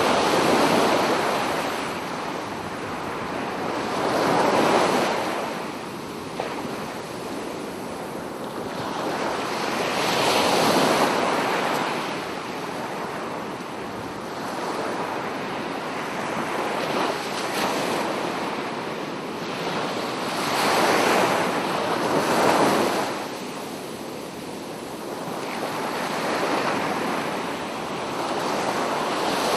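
Waves breaking on a beach, the surf rushing up and falling back in a swell every four to six seconds.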